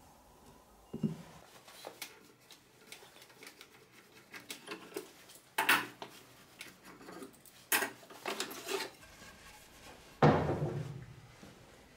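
Knocks and clatter of tools and pieces of wood being handled and set down on a wooden workbench. A heavier wooden thump comes near the end and dies away over about a second.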